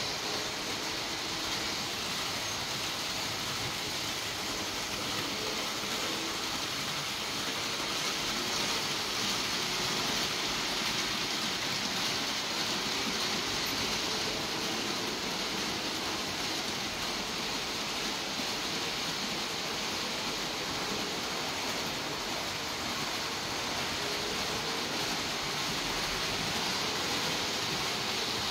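Several Märklin model trains running on the layout: a steady whirring rumble of wheels rolling on the rails and small electric motors, with no pauses.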